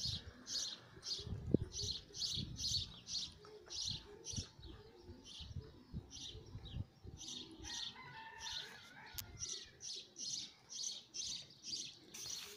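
Domestic racing pigeons cooing softly around the loft, over a small bird chirping steadily at about two to three chirps a second.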